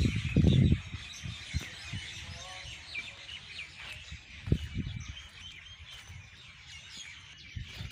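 Many small birds chirping and twittering together in the trees at dusk. Low thumps of wind and handling on the phone's microphone are loudest in the first second.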